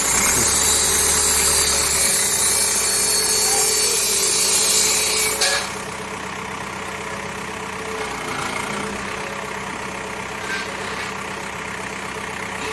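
Cat 424B backhoe loader's diesel engine idling steadily under a loud hiss that cuts off suddenly about five and a half seconds in; the idle then continues alone.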